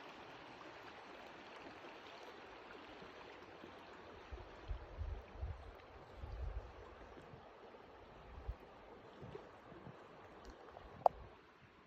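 Steady rushing outdoor noise, with a few low thumps on the microphone in the middle and a single sharp click near the end.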